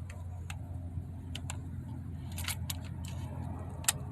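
Scattered light metallic clicks of cartridges being pushed into a Winchester 30-30 lever-action rifle's tube magazine against its stiff new spring, the sharpest click near the end. A steady low hum runs underneath.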